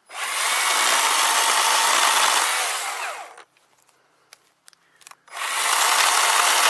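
Worx cordless electric chainsaw cutting through a dead, dry pear branch: two cuts of about three seconds each, with a short pause between them broken by a few clicks.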